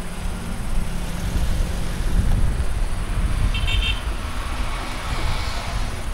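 Pickups and SUVs driving past one after another, engines running under a steady low rumble, with a brief high beeping horn toot about three and a half seconds in. The noise swells near the end as a vehicle passes close.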